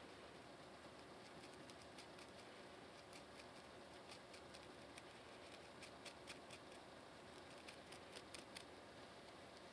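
Faint, crisp scratching of fingernails and a plastic comb tip on a dry, flaky scalp between braids: quick irregular scratches, thickest in the middle and later part, over a steady faint hiss.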